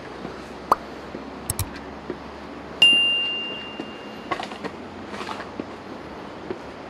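A single high metallic ding: something struck once about three seconds in, ringing with one clear tone that fades over about a second and a half, over steady background noise with a few small clicks.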